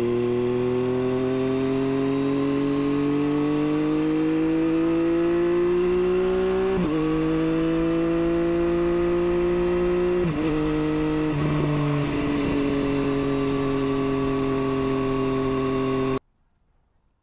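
2024 Triumph Street Triple RS's inline three-cylinder engine through an SC Project S1 exhaust, pulling hard through the gears. The note climbs steadily and drops sharply at two upshifts, about 7 and 10 seconds in, then sinks slowly as the throttle eases off. The sound cuts off abruptly near the end.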